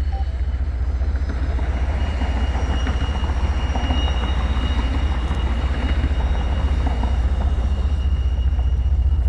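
Freight train passing, its wheels rumbling and clattering on the rails, with a steady high-pitched tone above the noise.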